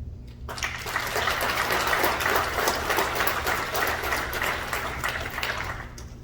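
A group of people clapping, starting about half a second in and dying away near the end.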